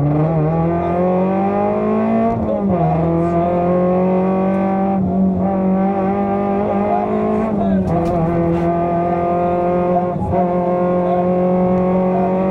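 Fiat Seicento rally car's four-cylinder engine heard from inside the cabin, pulling hard at high revs. Its pitch climbs and drops sharply about two and a half seconds in, then holds nearly level and drops again near eight seconds in, typical of upshifts while accelerating along the stage.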